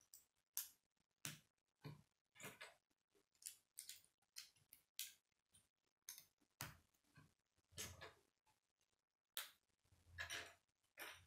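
K'nex plastic rods and connectors clicking as they are handled and snapped together: quiet, irregular clicks, about two or three a second.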